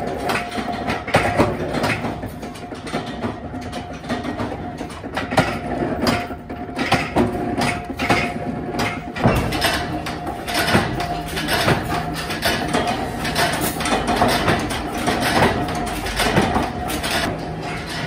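Factory machinery running, with irregular clicks and knocks over a steady whine.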